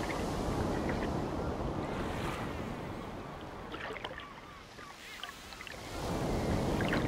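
Ocean surf washing onto a shore, swelling at the start and again about six seconds in. A few short high chirps sound over the wash.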